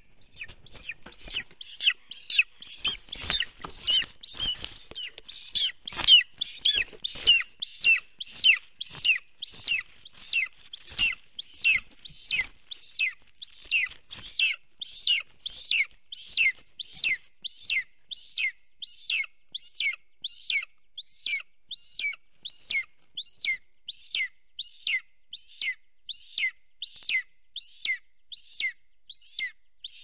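Golden eagle nestling begging for food: a steady series of high, down-slurred whistled calls, a little more than one a second, as an adult brings prey to the nest. Soft thumps from wingbeats and shifting nest sticks come in the first dozen seconds, loudest a few seconds in.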